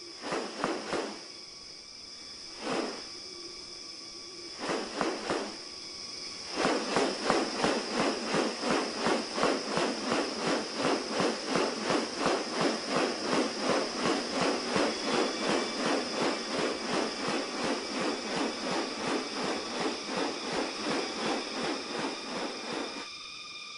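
Rainforest ambience: a steady high insect drone with a few short animal calls in the first seconds, then from about six seconds in a fast, even pulsing series of about two to three beats a second that stops near the end.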